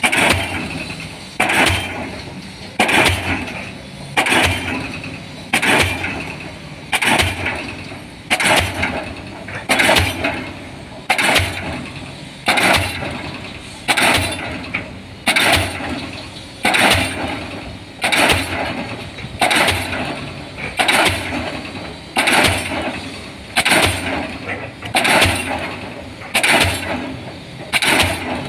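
DD 55 diesel pile hammer driving a 500 mm concrete pile: a sharp blow about every second and a half, each fading away before the next, in a steady rhythm.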